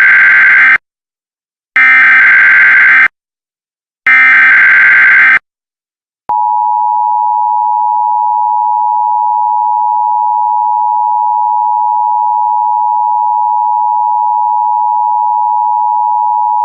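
Emergency Alert System SAME header: three harsh bursts of warbling digital data, then about six seconds in the two-tone EAS attention signal starts and holds as one steady, unbroken tone. It is the header and alert tone of a simulated warning, and a spoken tornado warning follows it.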